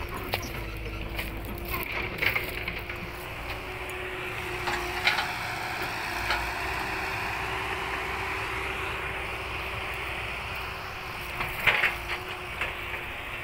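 Footsteps crunching on dry straw stubble and clods, in a few scattered crunches, over a steady engine hum.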